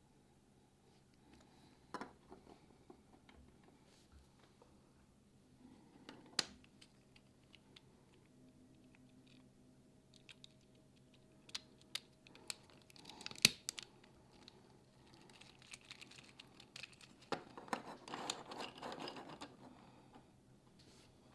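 Small 3D-printed plastic model parts being handled and fitted together: scattered sharp clicks, the loudest a little past the middle, then a couple of seconds of scratchy rubbing near the end.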